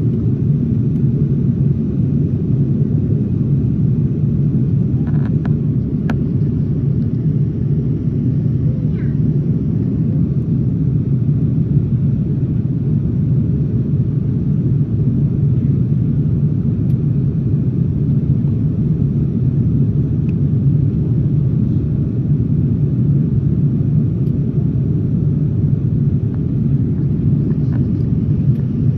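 Steady cabin noise inside a Boeing 787-9 airliner in flight: a constant low rumble of airflow and engines, unchanging throughout.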